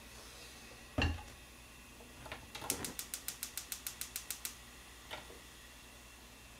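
A thump, then a gas stove's electric igniter clicking rapidly, about eight clicks a second for just under two seconds, as a burner is lit.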